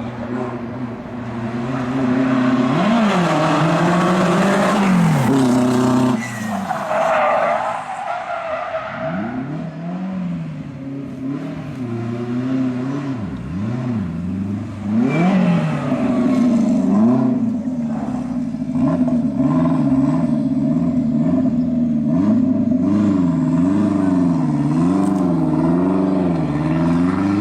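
Renault 5 Turbo rally car's turbocharged four-cylinder engine revving hard and dropping repeatedly through gear changes, with a burst of tyre skidding about a quarter of the way in. Near the end the revs swing up and down steadily, about once or twice a second.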